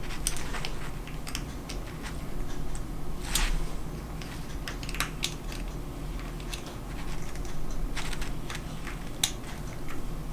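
Small screwdriver tightening the screws that hold a plastic model car wheel and hubcap, with scattered light clicks and ticks of the tool and parts.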